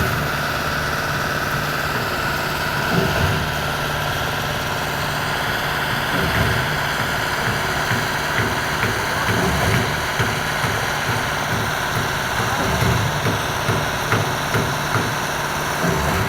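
An engine running steadily at idle, with small irregular knocks and clicks over the hum.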